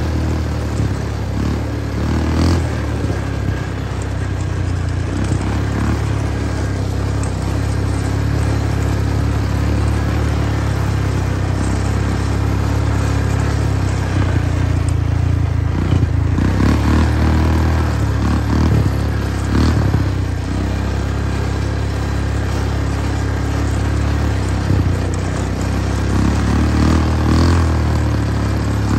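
An engine running steadily with a heavy low hum, with scattered rattles and knocks over it.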